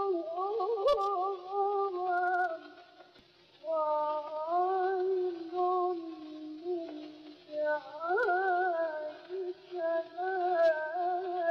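A solo voice from an old recording sings a slow, heavily ornamented Arabic melody, with a short break about three seconds in. A few faint clicks sound under it.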